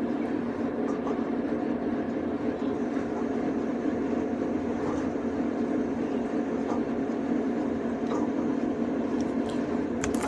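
Steady droning background noise, with a few faint clicks near the end.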